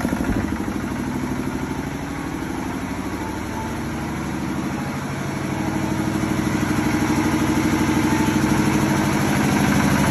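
5 kVA diesel generator set's water-cooled diesel engine running steadily with a fast, even beat. It gets a little quieter for a few seconds in the middle, then returns to full level.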